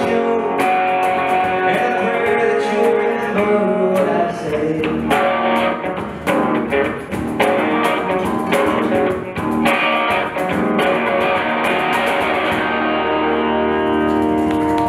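Live band of electric guitar, electric bass and cajón playing a song, with steady strummed guitar over regular cajón hits. About two seconds before the end the hits thin out and the guitars ring on a held chord.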